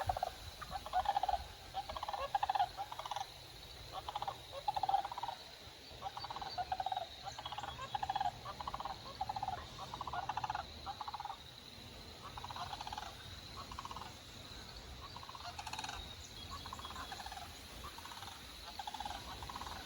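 Wild turkeys calling: a long run of short, rattling calls, one or two a second, thinning out toward the end.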